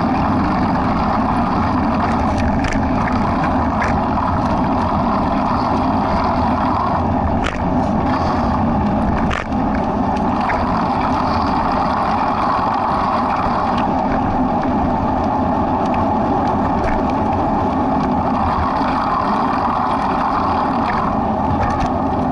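Steady wind rumble buffeting the microphone of a camera moving along the path, with a few faint clicks.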